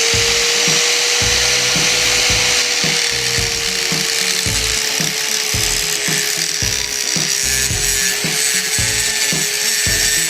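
Angle grinder with a standard cutting disc running under load as it grinds through a steel Kryptonite bike lock. A steady whine that slowly drops a little in pitch sits over a loud grinding hiss, with irregular low knocks underneath.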